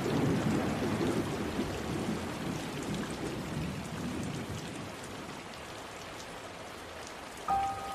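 Steady rain with a low rumble of thunder that slowly dies away. Near the end, a few held musical notes begin.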